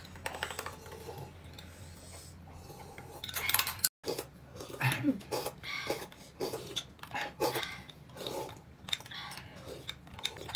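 Tableware sounds during a meal: scattered, fairly quiet clinks and scrapes of utensils against dishes, irregular in timing.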